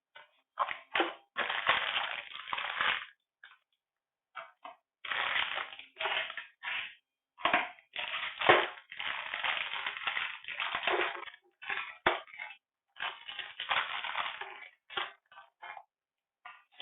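Packaging being crinkled and handled in short, irregular bursts with brief silent gaps between them, as a parcel is unwrapped.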